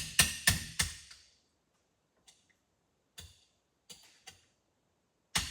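A small ratchet tapping a steel punch to drive the piston pin out of a Stihl MS 311 chainsaw piston. Three sharp metallic taps come at the start, then a few light taps, then two more sharp taps near the end.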